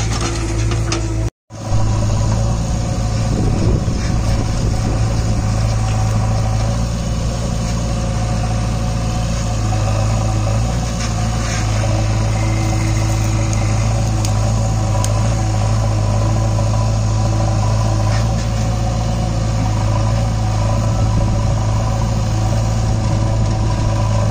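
JCB 3DX backhoe loader's diesel engine running steadily at a constant speed as it digs and loads soil into the truck. The sound drops out for a moment about a second and a half in.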